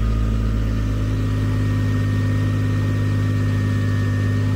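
Diesel engines of a tractor backhoe and a mini excavator running steadily: a constant engine hum with a low, even throb.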